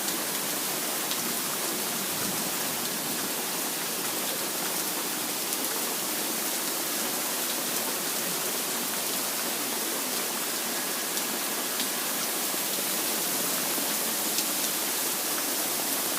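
Heavy rain falling steadily, a dense even hiss with a few sharper drop ticks here and there.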